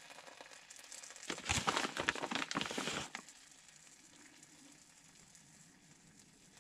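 Soft crinkling and rustling for about two seconds, starting just over a second in, as a handful of shredded mozzarella is grabbed and sprinkled by hand onto a meatball sub.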